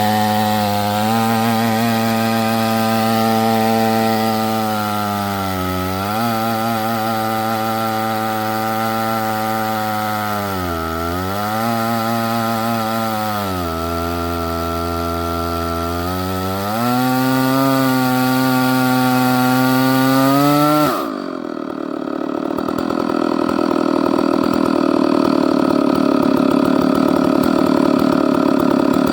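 Chainsaw on an Alaskan chainsaw mill, ripping a log lengthwise into a slab. The engine runs under heavy load and its pitch sags and recovers several times. About twenty seconds in, the sound changes abruptly to a rougher, more even noise.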